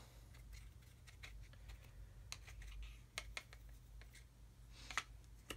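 Faint, sparse clicks and light taps as a paintbrush and a small plastic model part are handled over a glass dish while dry weathering pigment is dabbed on, over a low steady hum.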